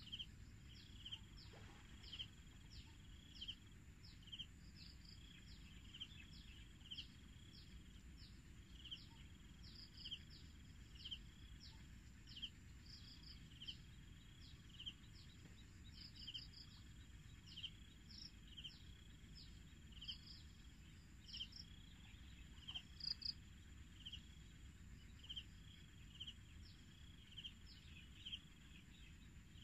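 Faint rural outdoor ambience: small high chirps, some falling in pitch, repeat about twice a second throughout, over a steady high insect-like whine and a low rumble of wind.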